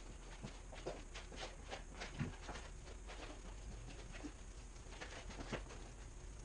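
Scattered light taps and knocks, several a second and irregular, over a faint steady low hum.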